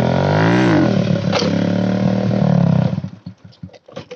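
Motorcycle engine running loudly with a quick blip of the throttle, its pitch rising and falling about half a second in, then holding steady until it cuts off abruptly about three seconds in. Light knocks and rattles follow.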